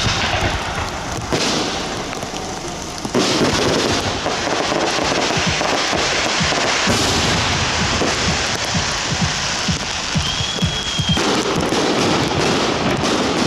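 Fireworks display: a continuous barrage of aerial bursts with many sharp bangs and dense crackling, thickening about three seconds in. A brief thin whistle comes near ten seconds in.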